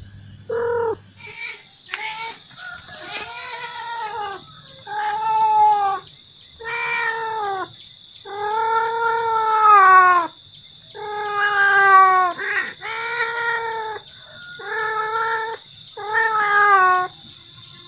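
Tomcat's mating call: about ten drawn-out yowls, each rising then falling, a second or two apart, with a longer one near the middle. It is the call of a male cat trying to draw a female. A steady high whine runs behind from about a second in.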